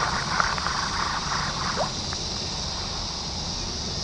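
Creek water running, under a steady high-pitched hiss and a low rumble, with a few faint clicks in the first second and one short rising chirp just before halfway.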